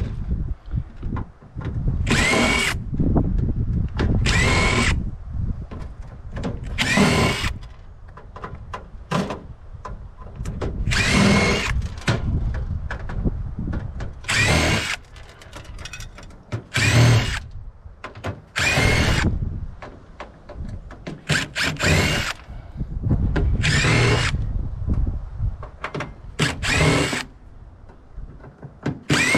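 Power drill running in short repeated bursts, each with a rising whine as the motor spins up, typical of backing out screws while dismantling a microwave oven.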